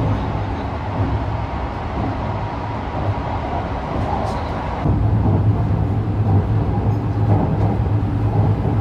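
Sunrise Seto sleeper train running on a bridge crossing, heard from inside the passenger car: a steady rumble of wheels on rail with a low hum. About five seconds in the sound steps up suddenly, louder and with a heavier low hum.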